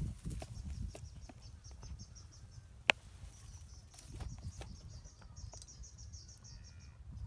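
Insects chirping in fast repeated pulses, high-pitched, over a low rumble, with one sharp click about three seconds in.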